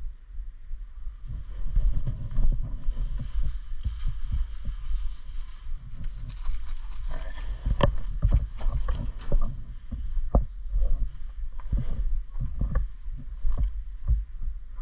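Irregular low thumps and knocks with a few sharp clicks, busier in the second half: handling and movement noise close to the microphone.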